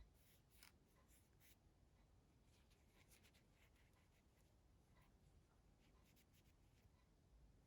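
Near silence with faint light rubbing and small scattered ticks of hands cleaning small mobile-phone parts.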